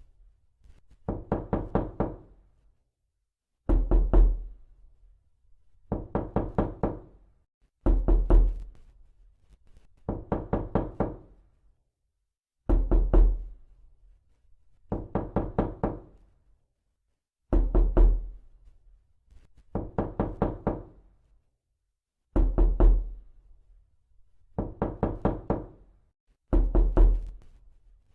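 Knocking on a door with the knuckles: sets of about five quick knocks, one set every two seconds or so, alternating louder, deeper sets with softer ones, the same pattern repeating over and over.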